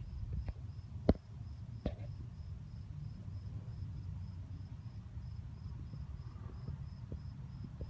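A cricket chirping steadily, about three high-pitched chirps a second, over a low background rumble. A sharp knock about a second in is the loudest sound, with a softer one shortly after.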